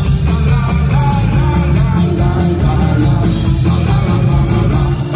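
Live band playing an upbeat rock song: strummed acoustic guitar, electric bass and a drum kit, with a voice singing, loud and steady through the PA.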